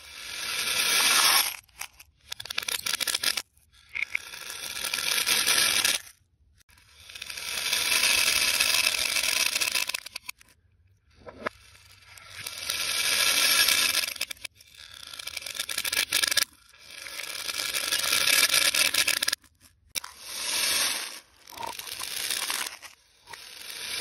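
Plastic pony beads clattering against each other and against clear plastic cups, played backwards. About ten bursts of bead rattle each build up and then cut off suddenly.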